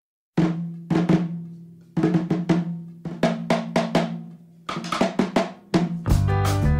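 Drum hits in short groups, each group ringing and dying away before the next. About six seconds in, full band music with a bass line comes in.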